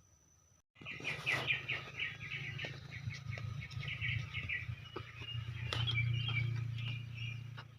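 A songbird singing a fast run of repeated chirping notes, about six a second, then scattered chirps. It starts abruptly about a second in, over a steady low hum that swells around six seconds in.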